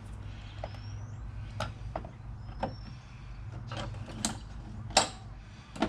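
Scattered clicks and knocks of small parts and clips being handled in a car's engine bay, eight or so, the sharpest about five seconds in, over a steady low hum. Two or three faint bird chirps.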